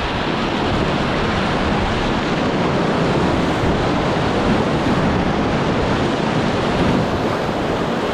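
Whitewater of a river rapid rushing steadily and loudly.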